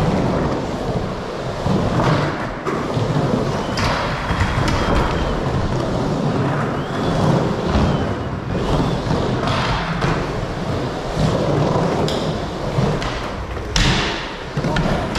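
Skateboard wheels rolling and rumbling steadily around a skate bowl, with thuds and knocks of the board; a sharper knock comes near the end.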